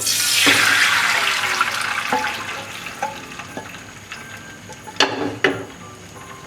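Duck gravy poured into hot frying oil sizzling loudly at once, then fading steadily over a few seconds as it settles to a simmer. Two sharp knocks come near the end.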